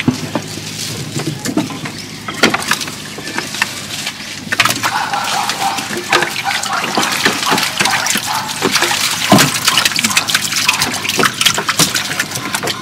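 Water splashing and dripping in a small boat's hull as walking catfish are emptied out of a wire-mesh fish trap, with many small knocks and slaps that grow busier about halfway through.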